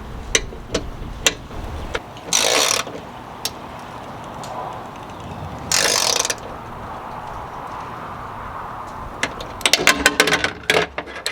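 Ratchet wrench clicking as a 10 mm bolt is cinched down to clamp an antenna mount bracket: single clicks, two short bursts of ratcheting, and a quick run of clicks near the end.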